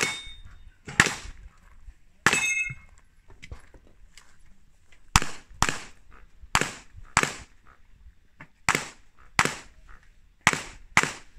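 Pistol shots from a 9mm Glock 17 fired through a practical-shooting stage, about eleven in all: three single shots, then pairs about half a second apart. One early shot is followed by a brief metallic ring.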